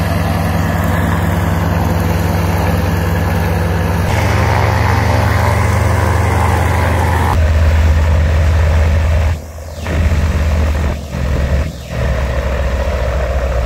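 Single-engine firefighting plane's propeller engine running steadily on the ground, a loud low drone, while the plane waits to be refilled with water.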